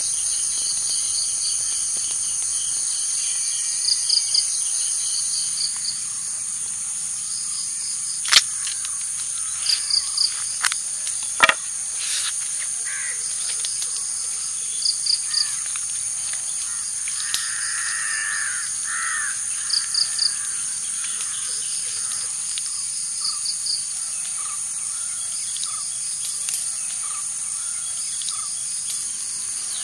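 Forest ambience: insects trilling steadily at a high pitch, with a short chirping call repeated in twos and threes every few seconds. Two sharp clicks come about a third of the way in, and a louder, lower call sounds a little past the middle.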